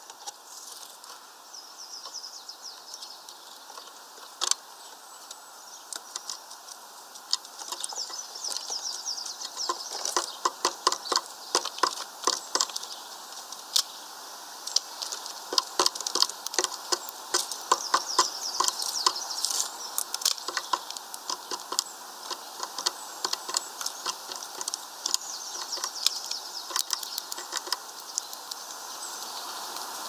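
Small birds feeding on a tray of sunflower seeds: rapid, irregular clicks and taps of beaks pecking and husks cracking and scattering. The clicking gets busier about a third of the way in.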